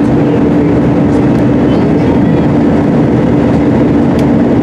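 Steady jet engine and rushing-air noise inside an Airbus A320-family airliner's cabin, the engines at climb power just after takeoff, with a constant low hum.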